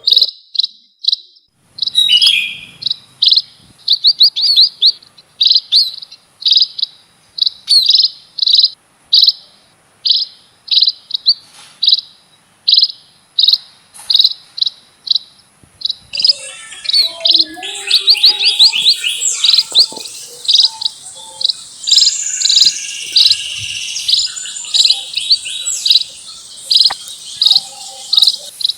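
A flock of emprit (munias) chirping: short, sharp calls repeated steadily, about two a second, until more birds join about halfway through and the calls crowd into a dense, overlapping chatter with higher notes.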